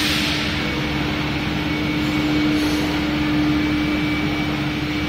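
Woodworking CNC router with carousel tool changer running: a steady spindle hum with a fainter high tone over even machine noise, with a brief hiss near the start and again at about the middle.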